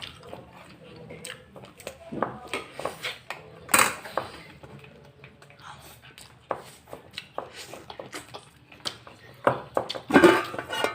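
Eating utensils clinking and tapping against a dish in irregular short knocks while someone eats, with a louder cluster of clatter near the end.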